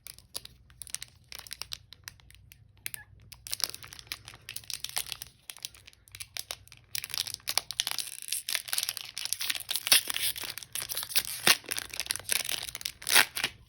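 Pokémon card booster pack's foil wrapper crinkling and being torn open. The crackling is sparse and faint at first, gets denser and louder about halfway through, and has a few sharp, loud crackles near the end.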